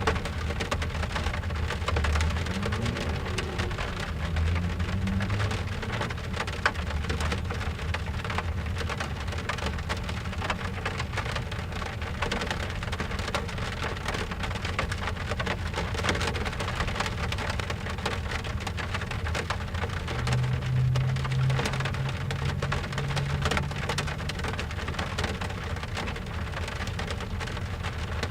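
Rain drumming steadily on a car's roof and windows, heard from inside the cabin as a dense patter of drops. Low rumbles rise and fall underneath now and then.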